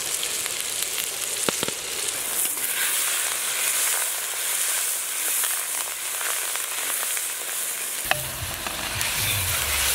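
Onions, green chillies, tomatoes and fresh curry leaves sizzling in hot oil in a large iron wok, stirred with a metal ladle, with a sharp tap now and then. A low rumble joins about eight seconds in.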